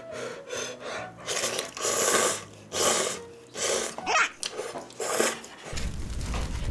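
Instant cup ramen noodles slurped up in a series of long, noisy sucking pulls, about six in a row. A low rumble comes in near the end.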